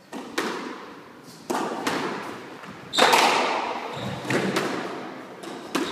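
Squash rally: rackets striking the ball and the ball hitting the court walls, a quick run of sharp hits, each with a short echo. The loudest hit comes about three seconds in.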